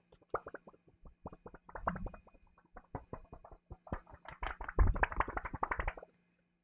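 Keys on a Win60 HE keyboard pressed in quick succession, a clatter of clicks that speeds up and gets louder for the last couple of seconds, then stops about six seconds in.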